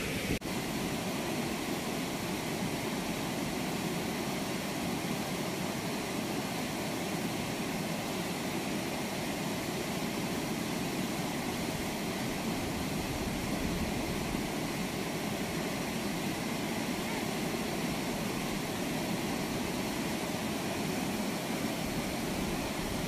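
Steady rushing of floodwater pouring out through the open sluice gates of a river weir, an even noise with no change in level. A single sharp click just after the start.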